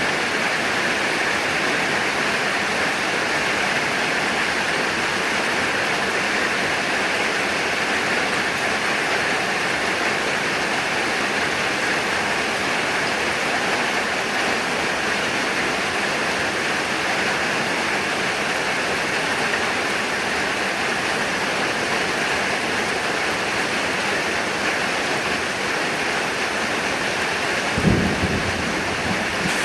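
Heavy rain falling steadily, with a short low rumble of thunder near the end.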